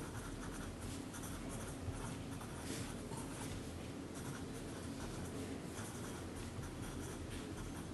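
Pen writing on paper: faint, light scratching strokes.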